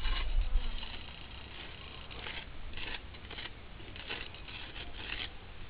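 A wooden stick scratching letters into sandy ground, a series of short scraping strokes a fraction of a second apart.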